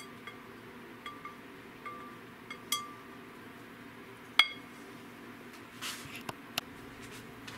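Ceramic mixing bowl and whisk clinking together as egg custard is poured and scraped out: several light ringing ticks, then one sharper, louder clink about four and a half seconds in, followed by a few soft rustles near the end.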